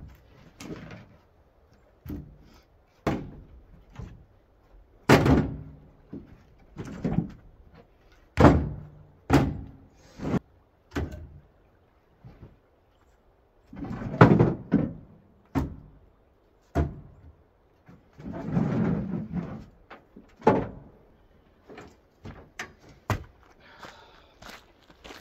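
Irregular knocks, thunks and scrapes of camping gear and split firewood being handled and set down in a pickup truck bed and on its tailgate, under a camper shell. One longer, noisier stretch of handling comes about three-quarters of the way in.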